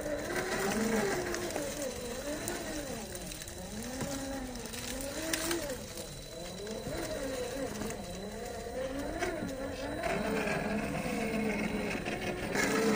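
Radio-controlled rock crawler's 550 brushed electric motor and geared drivetrain whining, its pitch rising and falling over and over with the throttle as it crawls over rocks.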